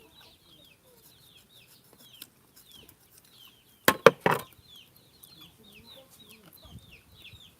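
Chickens calling: a steady run of short, high, falling peeps, about three a second. There is also a brief loud burst of noise about four seconds in.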